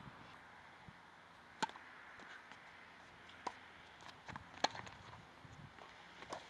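Tennis rally: sharp pops of a ball struck by rackets and bouncing on the hard court, coming every second or two, the loudest just past the middle.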